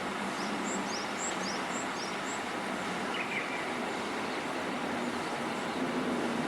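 Small songbirds chirping over a steady hum of distant traffic: a quick run of short, high notes in the first two seconds, then a brief call about three seconds in.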